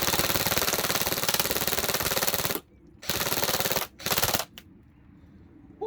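ASG Scorpion EVO airsoft electric gun firing 6 mm BBs on full auto. One long burst of about two and a half seconds, then after a short pause two shorter bursts close together.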